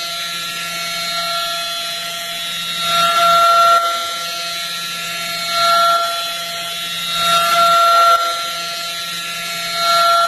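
DMG Mori vertical machining centre milling a small part: a steady spindle whine, with the cutting noise swelling louder four times, each for about a second, as the cutter takes its passes.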